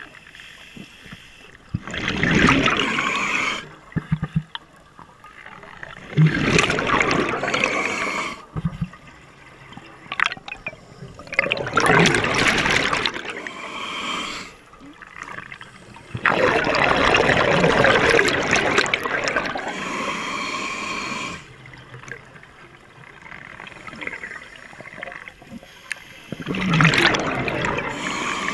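Scuba diver breathing out through a regulator underwater: five rushing, gurgling bursts of exhaled bubbles, one every four to five seconds, each lasting a few seconds, with quieter stretches between.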